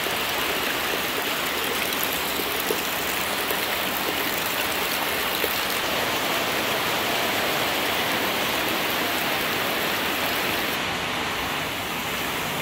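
Steady rain, with a stream of rainwater pouring and splashing into a container as it fills.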